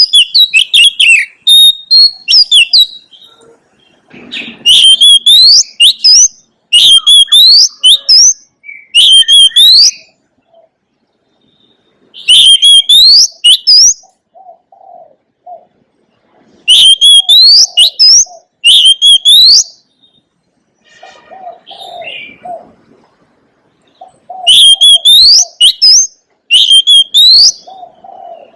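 Oriental magpie-robin singing loud, repeated phrases of quick rising whistles in bouts of one to three seconds, separated by short pauses. Softer, lower cooing notes come in some of the gaps.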